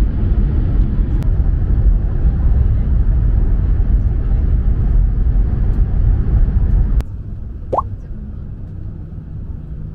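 Tohoku Shinkansen Hayabusa train running at speed, heard inside the passenger car as a loud, steady low rumble. About seven seconds in, the rumble drops suddenly to a much quieter level as the train runs past a station platform, and a brief rising squeak is heard shortly after.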